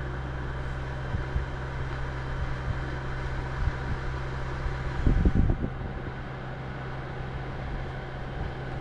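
Portable air conditioner running in a closed car cabin: a steady low hum with a faint even fan hiss, only a little noise. A brief cluster of low knocks about five seconds in.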